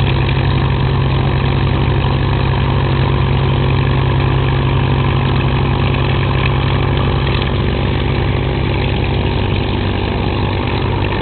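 A WWII fighter's liquid-cooled V12 piston engine idling steadily and loudly on the ground after start-up, easing slightly near the end.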